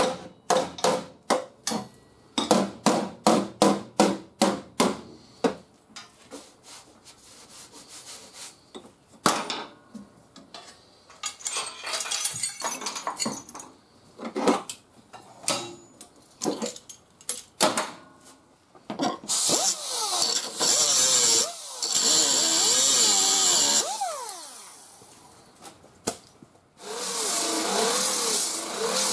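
A fast run of hammer blows on the steel quarter panel for the first few seconds, then scattered knocks and clicks. About two-thirds of the way in, a large disc grinder/sander with a coarse 40-grit fibre disc runs against the bare metal, whining and wavering under load, spins down a few seconds later, and starts grinding again near the end.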